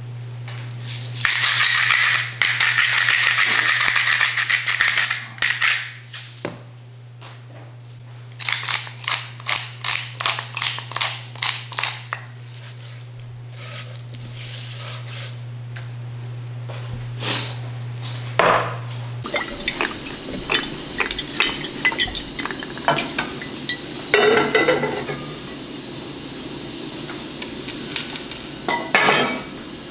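A spice mill grinding for a few seconds, then a run of about a dozen short grinding bursts about three a second. Then butter sizzling in a pot, a steady hiss with scattered crackles.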